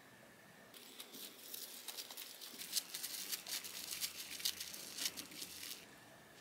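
Plastic cling wrap (Glad Magic Wrap) crinkling and rustling as hands wrap it tightly around a rolled-up slice of bread, a dense run of crackles starting about a second in and stopping near the end.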